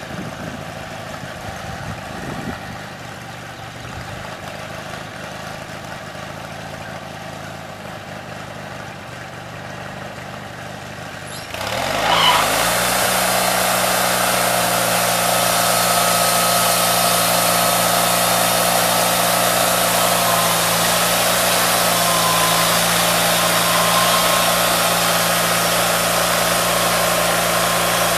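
Portable band sawmill's engine idling, then revving up to full throttle about twelve seconds in and running steadily and loudly at high speed, with a whine and hiss above the engine note.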